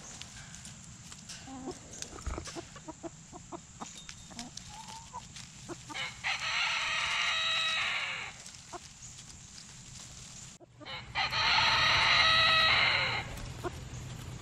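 Backyard chickens clucking softly while they forage, then a rooster crowing twice, each crow about two seconds long and much louder than the clucking.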